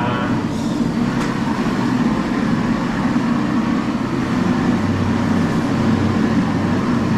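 Propane heat gun running steadily, a constant low rush of gas flame and blower, heating the PVC stretch-ceiling film to make it elastic enough to stretch and fit.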